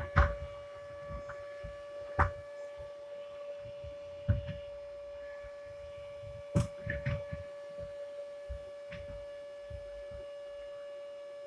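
Vacuum cleaner running with a steady, even whine, with several sharp knocks and bumps, the loudest about a second in, at about two, four and six and a half seconds.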